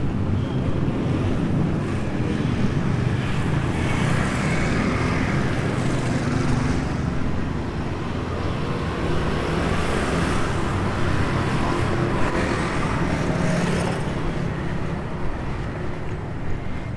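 Busy city street ambience: steady road traffic passing, with people's voices in the background.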